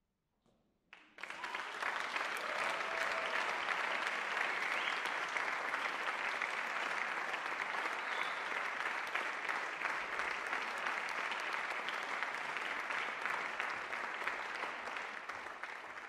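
Audience applauding: after a second of silence the clapping breaks out suddenly and carries on, dense and steady.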